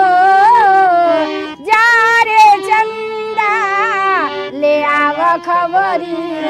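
A woman singing a Bhojpuri folk song solo in a high voice, holding notes with a wide vibrato and gliding between them.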